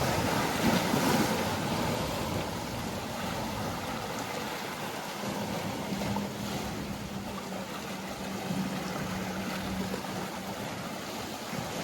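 Mediterranean waves washing against the shore, with wind on the microphone, strongest in the first couple of seconds. Midway a boat engine's steady low hum joins in for about five seconds.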